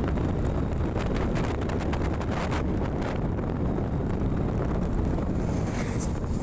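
Wind buffeting the microphone, a steady low rumble with scattered rustling crackles.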